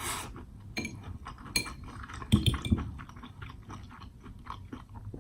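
Cutlery clinking against a plate, with chewing of steak in between; the loudest clatter comes about two and a half seconds in.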